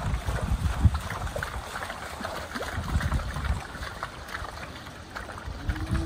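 Friesian steers' hooves squelching and splashing as the herd walks through wet mud and puddles, an uneven patter of many small splashes.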